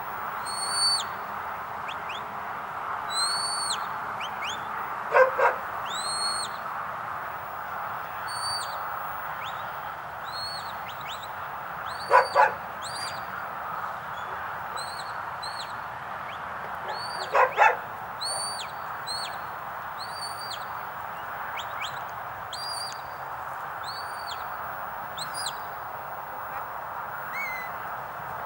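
A dog barking in quick pairs, three times, over a steady rushing background. Many short, high, arched whistled calls repeat about once a second throughout.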